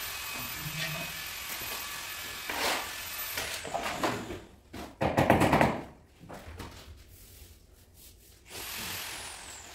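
Floor tile-laying work sounds: scrapes and knocks of tools and tiles, loudest a rough scrape about five seconds in, the kind a steel trowel makes scooping mortar from a bucket. A steady hiss stops about three and a half seconds in, and a high whistle falls in pitch near the end.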